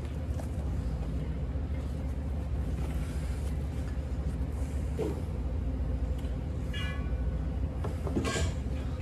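A steady low hum, with a faint knock about five seconds in, a short high squeak around seven seconds, and a brief scrape a little after eight seconds.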